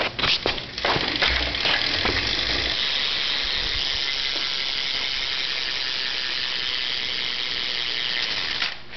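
Stock rear hub of a Cult BMX bike freewheeling as the back wheel is spun, its pawls ticking so fast they make a steady buzz. A few separate clicks come as the wheel is set going, then the buzz holds even and stops shortly before the end.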